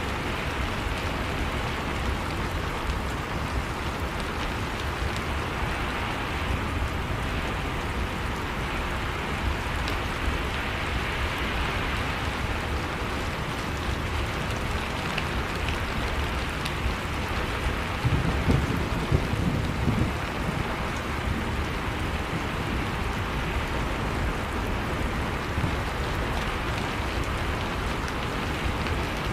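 Heavy rain falling in a steady hiss, with a short low rumble of thunder about two-thirds of the way through.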